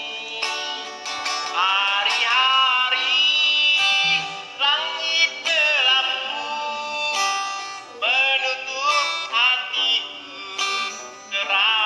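A person singing a song with plucked string accompaniment, the voice sliding up into notes and holding them.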